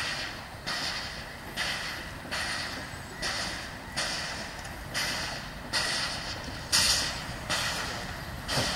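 MÁV class 109 steam locomotive working under power at low speed, its exhaust chuffing from the chimney in an even beat of about one chuff every 0.8 s.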